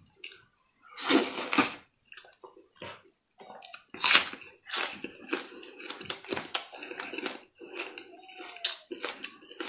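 Close-miked eating: wet slurping and chewing of fatty mutton, with small clicks of a knife cutting meat off the bone. The loudest slurps come about a second in and again about four seconds in.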